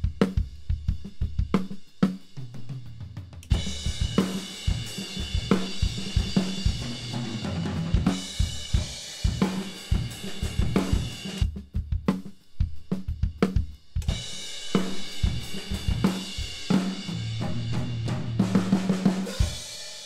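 Recorded drum kit playing kick-and-snare grooves and fills with cymbals ringing, heard first through the kick and snare close mics alone; about halfway through, a Shure SM57 'trash' mic aimed at the wall is added, distorted and heavily compressed to pick up the wall's reflections, making the kit sound bigger and roomier.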